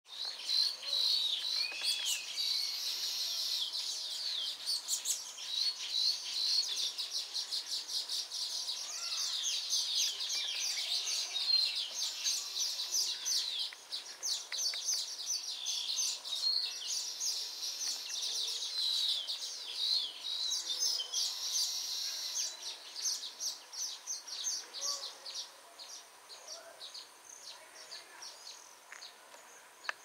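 Baya weavers chattering: a dense, continuous chorus of rapid high-pitched chirps from several birds, which grows quieter and thinner over the last several seconds.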